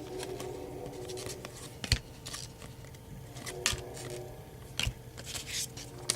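Baseball trading cards being handled and flipped: soft swishes of cards sliding over one another, with a few sharp clicks as card edges tap together.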